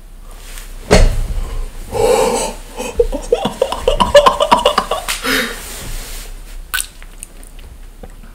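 A young man laughing hard in a run of quick bursts. It starts with a sudden loud outburst about a second in and dies away after about five seconds.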